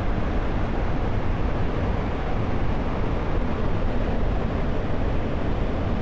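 Large waterfall in heavy flow, a steady rushing noise with no breaks, weighted toward the low end.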